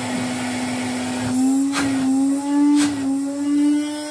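1978 Hoover Constellation 867A cylinder vacuum cleaner's motor running just after switch-on: a steady whine that edges slightly higher about a second and a half in, with a few light knocks. It carries a vibration that the owner suspects comes from fans loaded up with dust.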